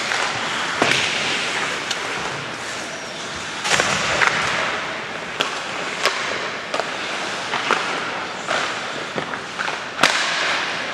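Ice hockey in play: skate blades scraping and carving on the ice, with sharp clacks of sticks and puck scattered through. The loudest crack comes near the end.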